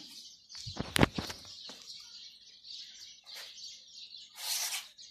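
Hands pressing and handling a craft foam sheet on a table: a sharp knock about a second in and a short rustling swish near the end. Steady high bird chirping runs underneath.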